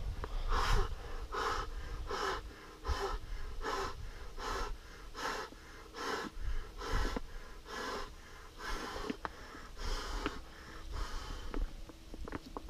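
A man inflating a waterproof gun case by mouth, blowing a long run of short, even puffs of breath into its half-zipped opening, a little over one a second. A few light ticks come near the end.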